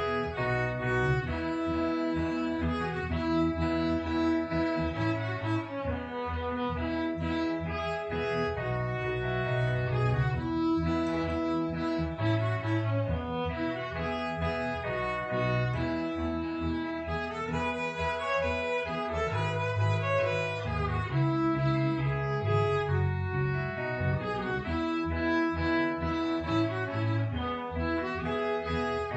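Violin and cello playing a gospel hymn medley, with held notes and a steady bass line.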